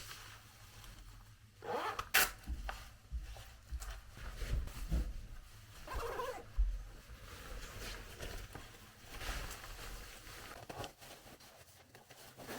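Irregular rustling, scraping and clicking handling noises, like clothing and gear being moved or a zipper being worked.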